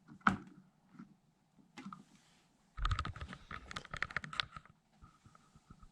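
Sharp handling clicks, then a quick run of rapid clicks and light clattering about three seconds in, lasting just under two seconds, as hard objects are handled.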